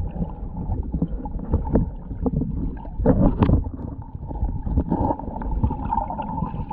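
Muffled underwater rumble with irregular knocks and gurgles from water moving against an action camera's waterproof housing, and a louder cluster of knocks and gurgling about three seconds in.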